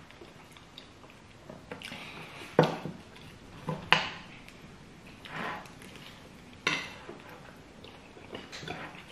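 Metal spoons and a fork clinking and scraping against ceramic plates while eating, with a handful of sharp clinks, the loudest about 4 seconds in.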